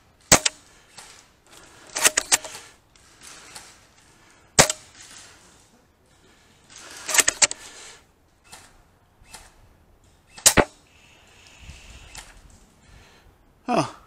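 Airsoft gunfire: sharp single shots right at the start, about four and a half seconds in and about ten seconds in, with quick strings of three or four shots around two and seven seconds in. A short sound sliding down in pitch near the end.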